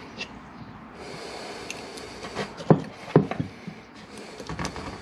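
A small hand tool scraping and picking crusty aluminium corrosion out of a rear brake caliper's slide-bolt bushing bore. A scratchy scraping runs for a second or two, then come a few sharp knocks of metal on the caliper, the loudest about three seconds in.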